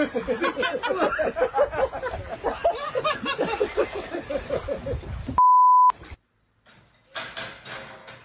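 A person laughing hard in quick, repeated bursts, cut off about five seconds in by a steady high beep lasting half a second. After a brief near-silence there is faint clatter near the end.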